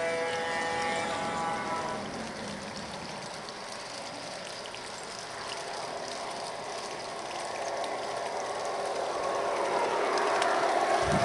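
Garden-scale model trains running on outdoor track: a steady rattling rolling noise with small clicks, growing louder toward the end. For the first two seconds a held pitched tone of several notes sounds over it.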